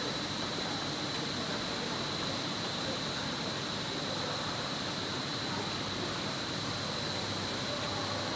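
Hose production line machinery running: a steady wash of noise with a constant high-pitched whine and a low hum.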